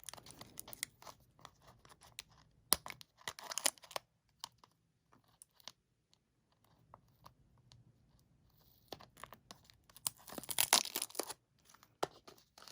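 A small cardboard box of staples being opened by hand: packaging tearing and crinkling in short crackly bursts with scattered clicks, thinning out to a few ticks in the middle before a busier burst near the end.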